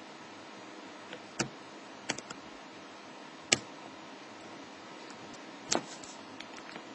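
Lock being picked: a handful of short, sharp clicks at uneven intervals from the pick and tension tool working the pins, the loudest about three and a half seconds in and a quick double click near the end.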